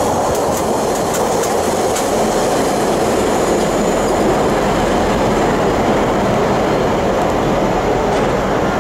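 Container wagons of an intermodal freight train rolling past, with a steady rumble of wheels on rail. Wheels click over rail joints a few times in the first two seconds, and a faint high wheel squeal comes partway through.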